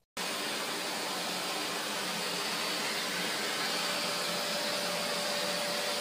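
Vacuum cleaner running steadily at close range, a constant whooshing noise with a thin whistling tone joining about four seconds in.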